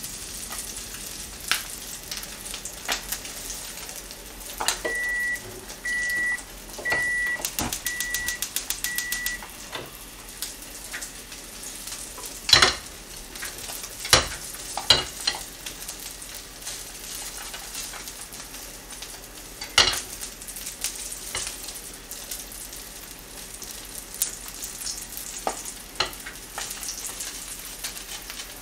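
Mackerel fillet frying in oil in a pan: a steady sizzle with scattered spits and pops, the loudest a few sharp pops about twelve, fourteen and twenty seconds in. From about five to nine seconds in, five short beeps sound at one pitch, about one a second.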